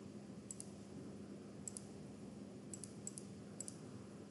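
Faint computer mouse clicks, mostly in quick pairs, a few times over a low steady hum.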